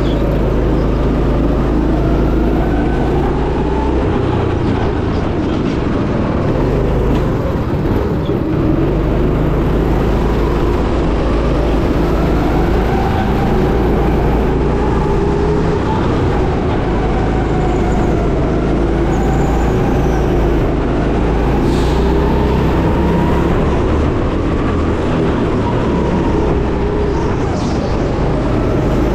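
Two-seat Sodi go-kart's motor running continuously, rising and falling in pitch over and over as the kart speeds up and slows for the corners, heard from onboard the kart.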